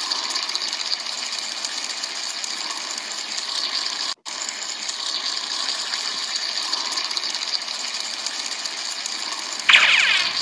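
Cartoon sound effect of a runaway kart's wheels rattling steadily as it rolls along, cut off for an instant about four seconds in. Near the end comes a loud whoosh as the kart zooms past.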